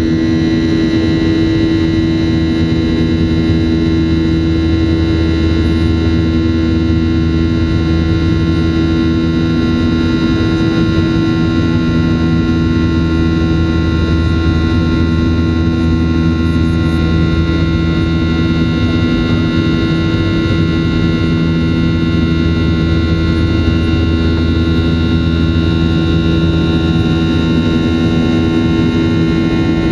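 Boeing 737-800 CFM56-7B turbofan engines heard from inside the cabin during the climb after takeoff: a steady loud drone with a deep hum and several fixed whining tones above it.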